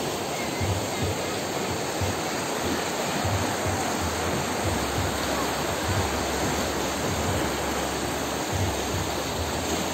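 Fast, shallow mountain river rushing over stones in white-water riffles: a steady, even rush of water.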